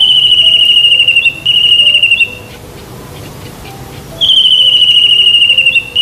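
Common kingfisher calling: a shrill, high, finely trilled whistle that falls slightly in pitch, given twice, each call about two seconds long with a short break in the middle; the second call starts about four seconds in. Faint background music underneath.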